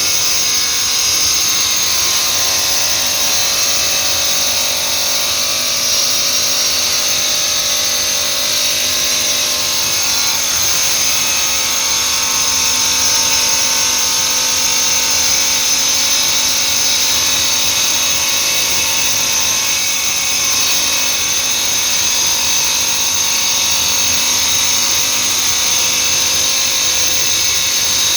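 Stone-cutting machine running steadily: an even, loud high-pitched whine over a hiss that does not let up.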